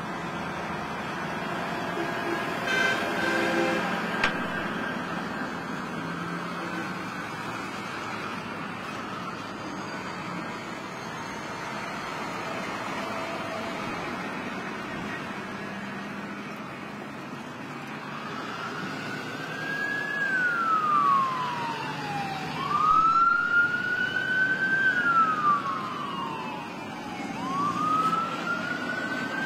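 Heavy tow trucks roll slowly past with their engines running, and a horn sounds briefly a few seconds in. From about two-thirds of the way through, a police siren wails in slow rising and falling sweeps, about three of them.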